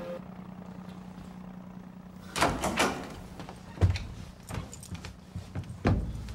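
Apartment door being opened and closed: a rattle of the latch and handle about two and a half seconds in, then a thump a little over a second later and another near the end, over a steady low hum.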